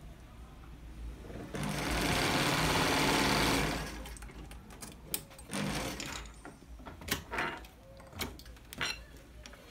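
Zoje industrial lockstitch sewing machine running in a short burst of about two seconds. It is followed by a string of sharp clicks and small knocks as machine parts are handled.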